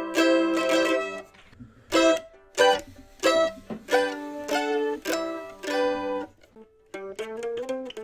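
Ibanez M700AVS mandolin with a solid spruce top and solid maple back and sides, played with a pick. It opens with a run of quick strums, then single chord strums come about every half-second to second with short gaps. A flurry of quickly picked notes follows near the end.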